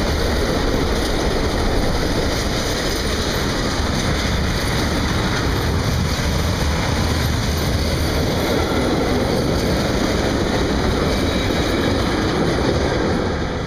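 Freight train of intermodal container wagons rolling past at close range, a steady loud rumble of steel wheels on rail. The sound drops away near the end as the last wagon passes.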